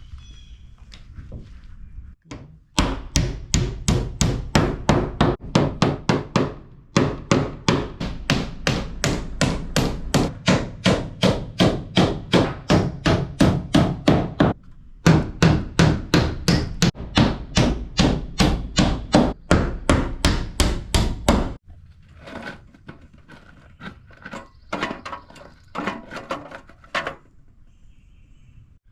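Hammer rapidly driving nails into T1-11 plywood siding, about three strikes a second, in three long runs with short pauses between. Near the end only a few lighter knocks.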